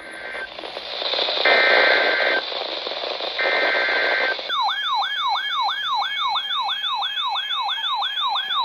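Emergency Alert System data bursts, short two-tone warbles repeated about a second apart, heard through radio static. About four seconds in, an electronic yelp siren tone starts, sweeping up and down about three and a half times a second.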